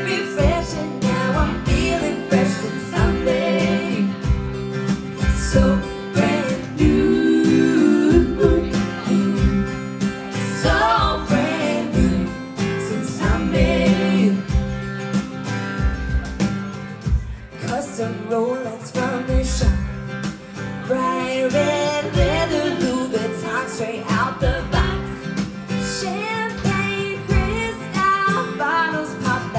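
Live country-pop band playing with a steady beat: strummed acoustic guitars under women's lead and harmony vocals.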